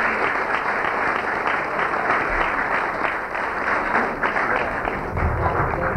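Audience applauding: a steady crowd of hands clapping.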